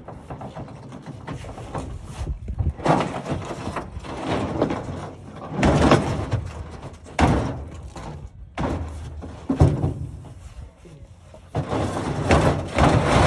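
Irregular knocks and bangs with rattling and scraping between them, a few louder strikes standing out every second or two.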